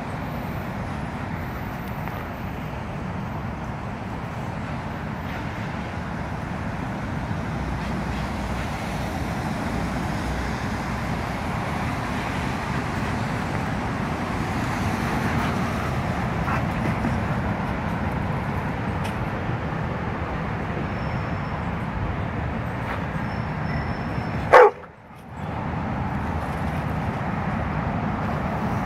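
Steady road traffic noise from the overpass and street, with a dog barking once, loudly and briefly, near the end.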